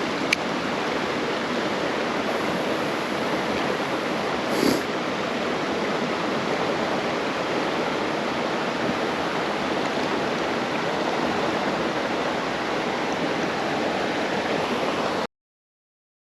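Creek water rushing steadily. It cuts off suddenly into dead silence about a second before the end.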